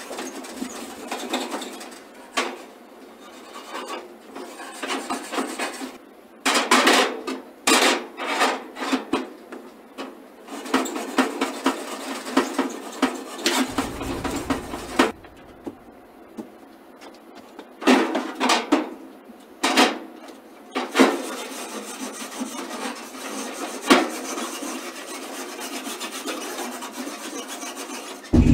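A grill brush scraping the inside of a gas grill, rasping over the grates and burners in uneven runs of strokes with short pauses between them.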